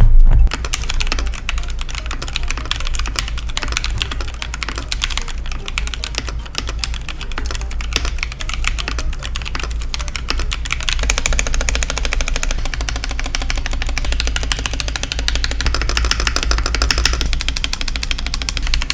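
Rapid typing on a mechanical keyboard fitted with Akko CS switches, a dense run of keystroke clicks.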